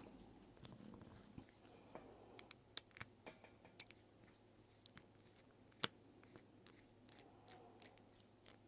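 Near silence with a dozen or so faint, irregular clicks and ticks of small watch parts and tools being handled on a work surface. The sharpest click comes a little before six seconds in.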